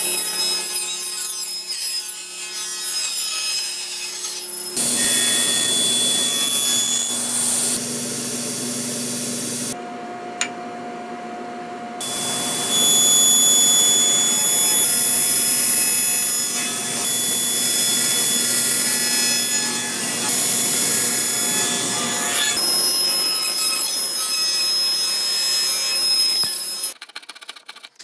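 Table saw running and ripping wood, with a steady motor and blade whine under the cutting noise. It comes as a string of short clips that switch abruptly from one cut to the next. Near the end the saw stops, leaving quieter, uneven work sounds.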